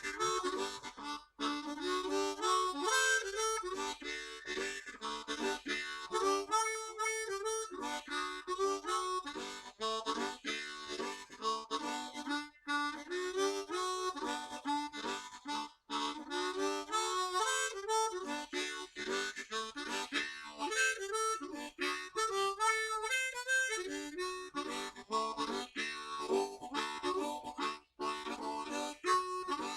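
Background music led by a harmonica playing a steady melody with chords.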